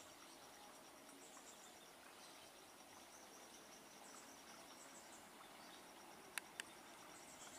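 Faint insect chirping, a rapid pulsed high trill that stops and starts, over near-silent background hiss, with two sharp clicks in quick succession near the end. The approaching freight train is not clearly heard.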